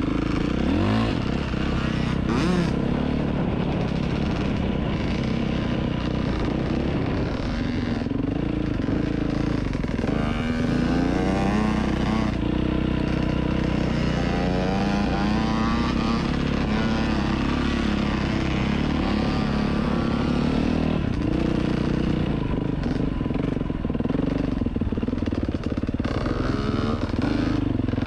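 Dirt bike engine running under way on a trail ride, its pitch rising and falling as the throttle is opened and eased.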